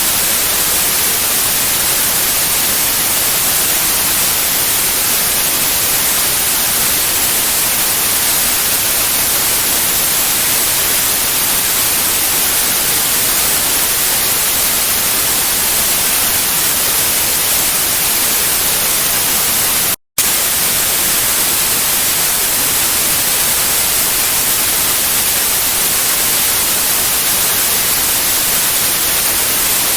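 Steady white noise, an even hiss strongest in the highs, that drops out for a split second about two-thirds of the way through.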